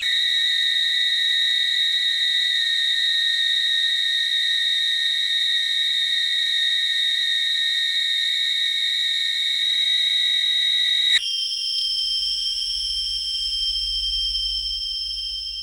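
Hospital patient monitor giving a steady electronic tone, held for about eleven seconds, then jumping abruptly to a higher pitch that holds to the end.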